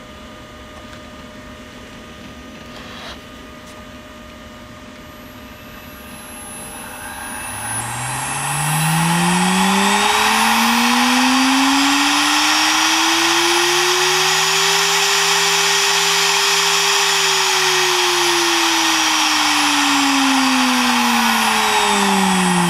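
0.75 kW air-cooled CNC spindle spinning up from standstill about six seconds in, its whine rising steadily in pitch over a loud rush of cooling air. It holds at top speed for a few seconds, then starts to wind down, the pitch falling, near the end. Before it starts there is only a faint steady hum.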